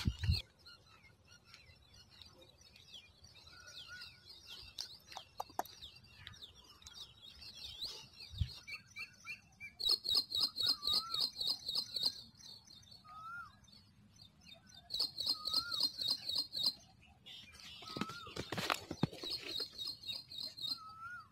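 Wild birds chirping and calling: scattered high chirps and short whistled notes, and three times a fast high trill that runs for about two seconds.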